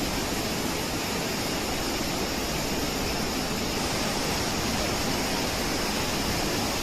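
Floodwater rushing steadily, a dense even noise without breaks.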